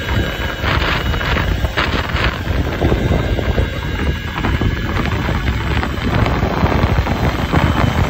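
Wind buffeting the microphone of a camera moving along a road, a steady low rumble with two short hissing gusts about one and two seconds in.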